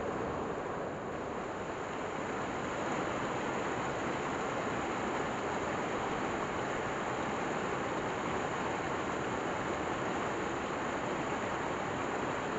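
Shallow mountain stream rushing over rocks: a steady, unbroken rush of water.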